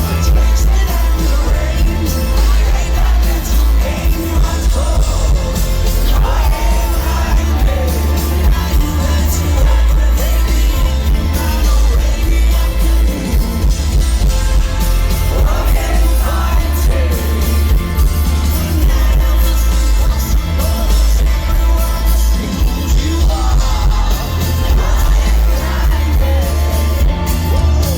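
Live rock band playing at full volume, heard from within the audience, with sung vocals and yells from the crowd over a heavy, booming bass.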